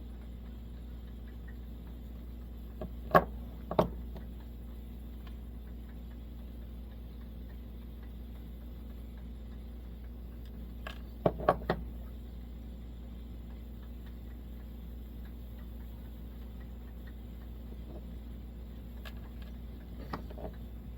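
Small parts being handled at the workbench, giving short sharp clicks and taps: two about three seconds in and a quick run of three or four around eleven seconds. A steady low hum runs underneath.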